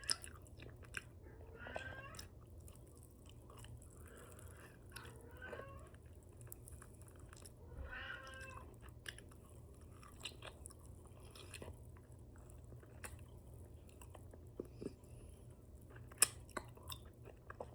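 Close-miked open-mouth chewing and lip smacking on chicken wings dipped in ranch: scattered wet clicks and crunches, the sharpest about 16 seconds in, with a few short voiced sounds in the first half.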